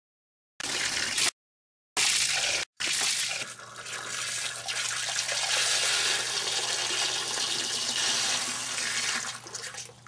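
Water running from an outdoor hose bib into a plastic measuring cup, a steady rush that dies away near the end as the tap is shut. In the first few seconds, short bursts of water sound are cut by moments of dead silence.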